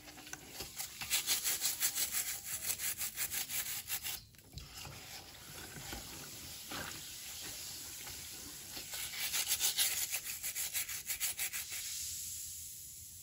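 A fruit and vegetable scrubbing brush rubbing its bristles back and forth over produce skin in quick, scratchy strokes. The strokes are heavier in the first few seconds and again from about nine to twelve seconds in, lighter in between.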